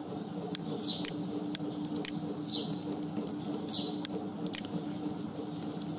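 Scattered clicks from a computer keyboard and mouse as text is edited, over a steady low hum. A bird gives three short falling chirps in the background.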